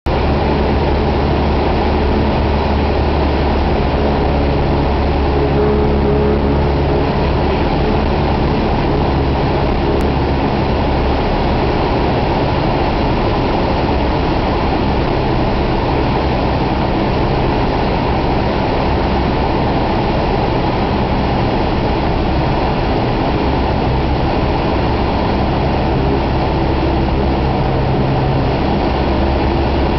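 Cessna 172M's four-cylinder Lycoming engine and propeller running steadily: a constant loud drone with a low hum.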